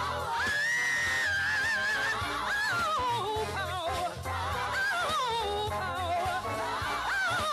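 Woman singing high gospel ad-libs into a microphone: long held notes with wide vibrato, then runs that slide down, over a live band with a steady bass line.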